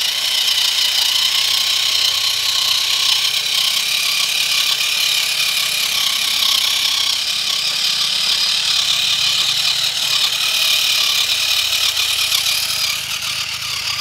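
Electric motor and gearbox of a WPL C24 1/16 RC truck whining steadily as it crawls over gravel, carrying a load of rocks in its bed.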